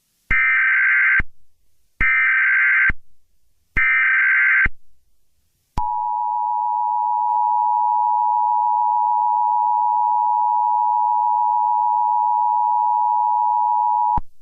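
Emergency Alert System tones: three short bursts of the buzzy digital SAME header, each about a second long, then the steady two-tone EAS attention signal held for about eight seconds before cutting off. Together they mark the start of an emergency alert broadcast.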